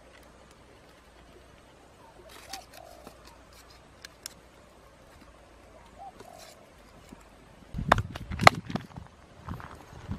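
Dry twigs cracking at a small kindling fire as it catches: a quick run of loud, sharp cracks about eight seconds in, after a quiet stretch.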